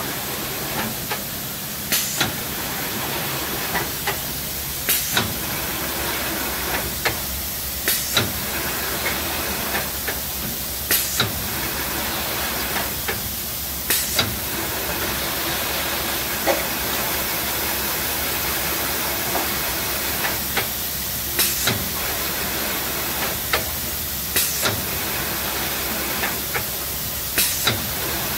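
Low-level palletizer and its roller infeed conveyor running: a steady hiss of machine noise with sharp mechanical clacks every one to three seconds, several coming in quick pairs, as the machine handles the cases.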